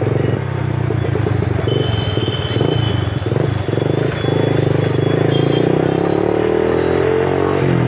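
Bajaj Pulsar 180's single-cylinder engine running under way, its pitch climbing steadily over the last few seconds as the bike speeds up.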